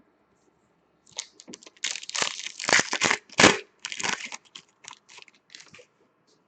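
A 2015-16 Upper Deck Artifacts hockey card pack wrapper being torn open and crinkled: a run of sharp ripping and crackling, loudest in the middle and trailing off into lighter rustles.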